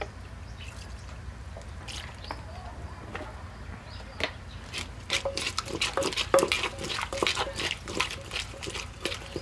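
Plastic spoon stirring and scraping wet chopped chillies, tomatoes and sauce around a clay mortar, with wet clicks and scrapes. Sparse at first, then quick and busy from about halfway.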